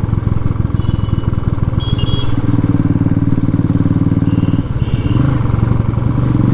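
Motorcycle engine running steadily under way, heard from a helmet-mounted camera, with a brief drop in engine sound about four and a half seconds in, as on a throttle lift or gear change. A few short high beeps are heard over it.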